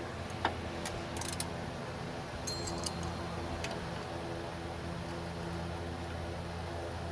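A few scattered metallic clicks and clinks of hand wrenches on steering-rack nuts and bolts, over a steady low mechanical hum.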